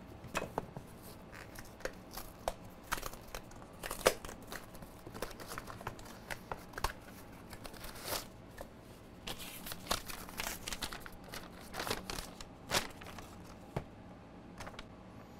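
A cardboard mailing box being slit open with a utility knife and its flap torn open by hand: a string of irregular scrapes, rips and crinkles. Near the end a folded paper note rustles as it is taken out.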